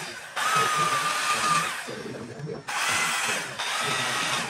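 Handheld power carving tool cutting into rosewood in two bursts of a second or so each: a steady whine over a rasping hiss that stops briefly between them.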